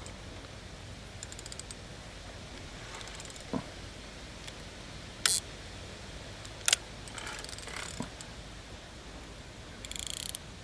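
Scattered mechanical clicks and ticks from a carp rod's spinning reel being handled, some in quick runs, with two louder snaps in the middle.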